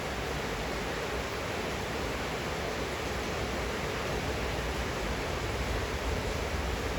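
Steady rain falling, an even hiss with no separate drops, gusts or thunder standing out.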